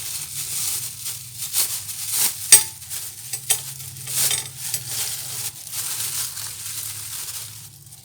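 Rustling of a plastic bag and light clinking of small steel screws and nuts being handled, with a sharp metal click about two and a half seconds in.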